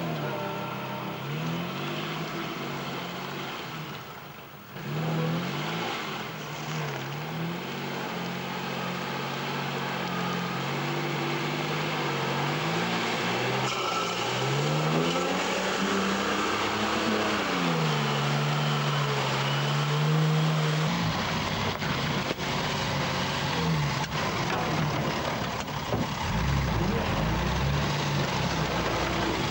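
Mercedes-Benz Unimog engine labouring through deep mud, its pitch rising and falling as the throttle is worked. About twenty seconds in the sound changes to a rougher, heavier rumble heard from inside the cab.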